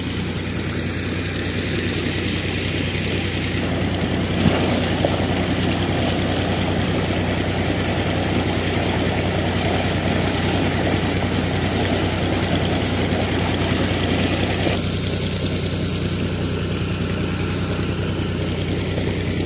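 Water rushing out of the large outlet pipe of a tractor-driven propeller (fan) pump into a sandy channel, over the steady running of the Fiat 480 tractor's three-cylinder diesel engine that drives the pump. The rush of water grows louder about four seconds in and eases off near fifteen seconds.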